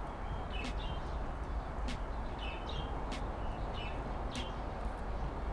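Small birds chirping in short high notes, with sharp ticks about once a second, over a low steady outdoor rumble.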